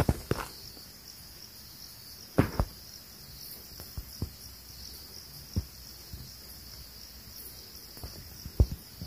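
Steady high-pitched chorus of insects, with a few scattered short knocks.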